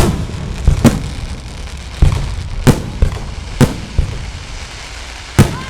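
Fireworks display: about seven sharp aerial shell bursts at irregular intervals of roughly half a second to a second, over a continuous crackling hiss.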